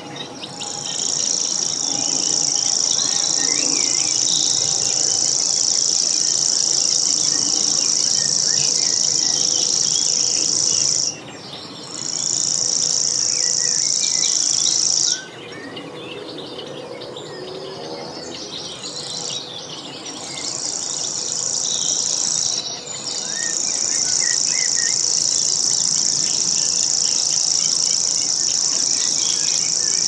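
Common grasshopper warbler reeling: a continuous, very high-pitched, even trill held for many seconds at a time. It stops briefly about 11 seconds in, falls silent for about five seconds from around 15 seconds, and breaks once more near 23 seconds before running on.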